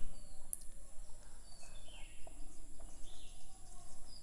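Whiteboard marker being written across the board, giving a few faint short squeaky chirps with the strokes, over a faint steady high-pitched tone.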